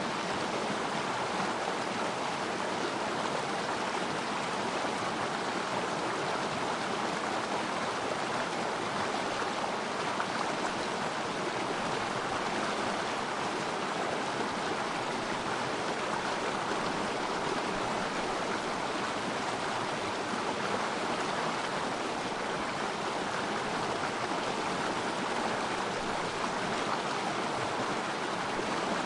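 Small river stream flowing over its bed, a steady, even rush of water.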